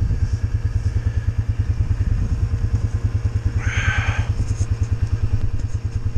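Engine of a small riding vehicle running steadily with an even low pulse as it drives through deep snow. A brief higher-pitched sound rises over it a little past halfway.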